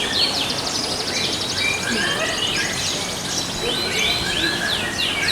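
Canaries singing together, fast trills and quick rising and falling notes overlapping one another, over a steady background din.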